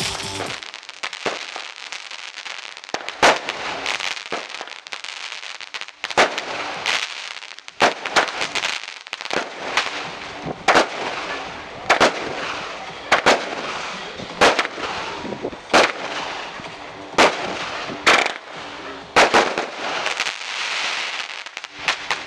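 Aerial fireworks going off: a long series of sharp bangs, roughly one every second or so from about three seconds in, with a continuous hiss and crackle between them.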